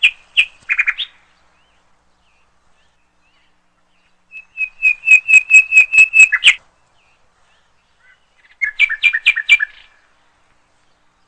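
A songbird singing three short phrases of quick repeated high chirps, the middle one the longest at about two seconds, with silence between the phrases.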